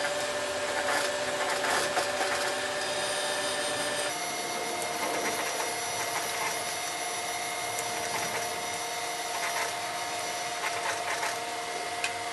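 Sewing machine top-stitching a denim slide pocket, its motor giving a steady hum that shifts pitch about four seconds in, with faint ticks from the mechanism.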